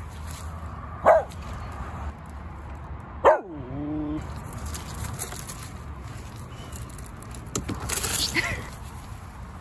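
Small dachshund–retriever mix dog barking twice, about two seconds apart, each bark sharp and falling in pitch, the second drawn out lower. A brief scuffing noise comes near the end.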